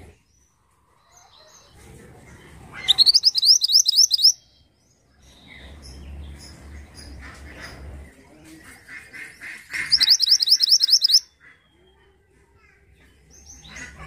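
Caged black-headed mantenan singing: two loud bursts of rapid, quickly repeated high notes, about three seconds in and again about ten seconds in, with softer chirps between.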